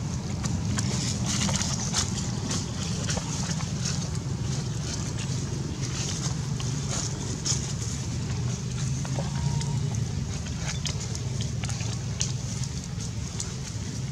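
Steady low wind rumble on the microphone, with scattered short crackles and rustles of dry leaf litter.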